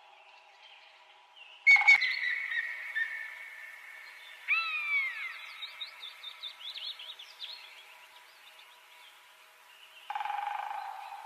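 Birds chirping with many small quick calls, over a steady high background. A sudden loud call about two seconds in trails off into a long falling tone, and a louder arching call comes about four and a half seconds in.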